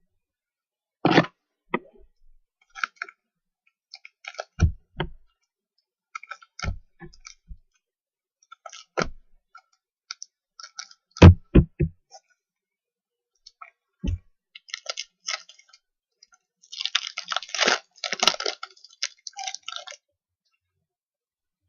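Trading-card packs and cards being handled on a table: scattered sharp clicks and taps, then a few seconds of wrapper crinkling near the end.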